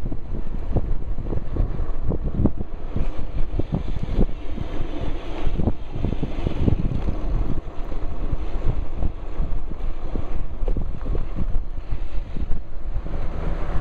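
Wind buffeting the microphone of a shirt-pocket camera on a moving electric bike. It makes a steady low rumble broken by frequent short thumps and rustles.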